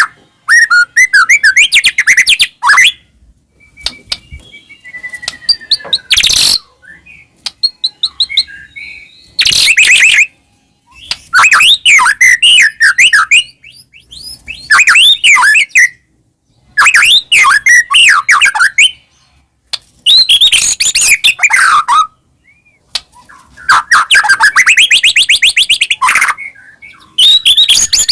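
White-rumped shama (murai batu) singing loud bursts of varied song: clear whistles, rapid trills and pitch sweeps, phrase after phrase with short pauses between, a full 'gacor' song packed with filler phrases (isian).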